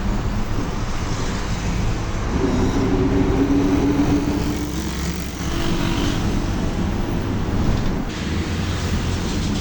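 Volkswagen 17-230 OD bus under way: a steady low drone from the drivetrain, with the differential roaring loud. A pitched whine comes up about two seconds in, holds for about three seconds and then fades.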